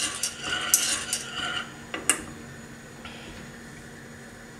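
Stainless-steel wire whisk stirring milky vanilla sauce in a coated pot, with quick scraping and clicking against the pot for about the first two seconds. Then two sharp clinks as the whisk is set down against the pot.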